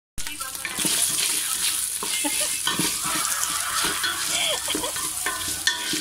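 Meat and sliced hotdogs sizzling in hot oil in a stainless steel pot, with a wooden spoon stirring and scraping through them and a few knocks against the pot.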